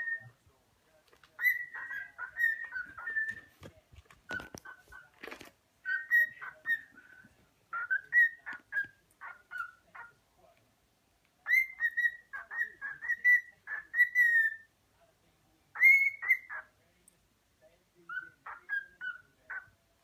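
Cockatiel whistling its song: short phrases of clear, chirpy notes around one pitch, repeated in groups with brief pauses between them. A few sharp clicks come about four to five seconds in.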